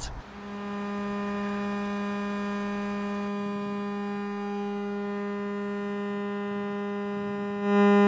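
A siren holding one steady low tone, the Swiss water alarm (Wasseralarm), whose signal is a series of long low continuous tones. The tone stays at the same pitch and gets markedly louder near the end.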